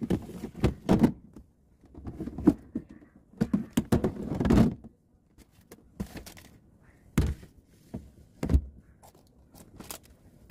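Plastic food storage containers being set down and pushed onto glass refrigerator shelves: a series of hollow knocks and thunks, with a longer sliding scrape about four seconds in.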